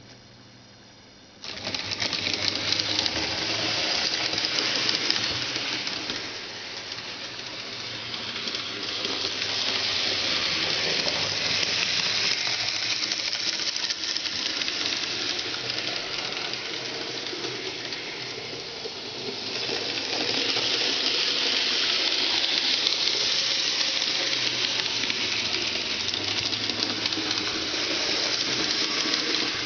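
N-gauge model train running on the layout's track: the small electric motor whirring and the wheels clicking and rattling over the rails. It starts abruptly about a second and a half in and swells and fades several times.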